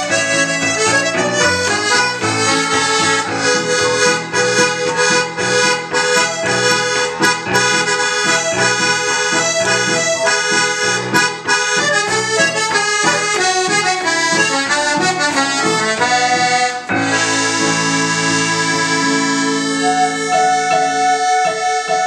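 A diatonic button accordion plays a fast reel, with electronic keyboard accompaniment from a Yamaha keyboard. About seventeen seconds in, the quick notes give way to long held chords as the tune comes to its close.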